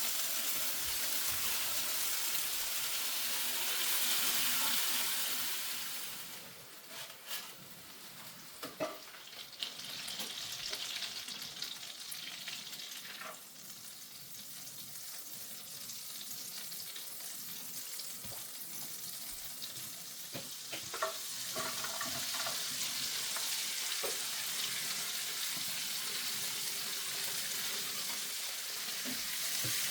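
Food sizzling in a frying pan, with scattered clicks and knocks of a utensil. The sizzle fades about six seconds in and comes back loud about twenty-one seconds in.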